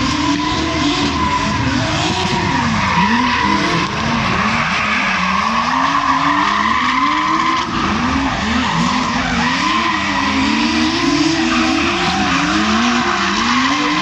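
Drift cars sliding in tandem, their engines revving up and down over and over while the tyres skid and squeal.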